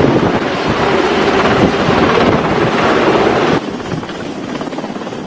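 Strong wind buffeting the microphone over the rushing sea between two ships steaming side by side. About three and a half seconds in, it cuts abruptly to a quieter, steady rush of wind.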